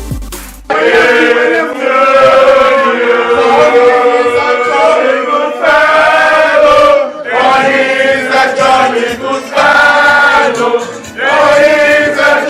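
A group of people singing together in chorus, in loud phrases with short breaks between them. It follows an electronic beat that cuts off abruptly within the first second.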